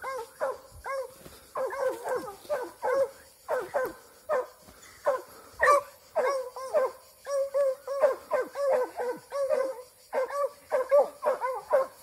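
Boar-hunting hounds baying at a wild boar they are holding at bay: a continuous run of barks, about two a second, some of them drawn out.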